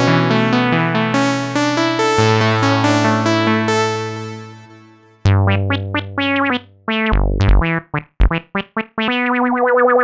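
Yamaha Montage M8x synthesizer being played: sustained keyboard chords over a held bass note that fade away about five seconds in, then short, punchy bass-and-chord stabs. Near the end a held note with a wavering tone comes in.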